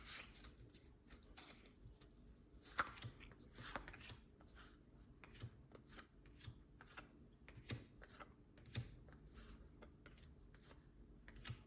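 Pokémon trading cards being handled and flipped through: faint, scattered soft taps and rustles.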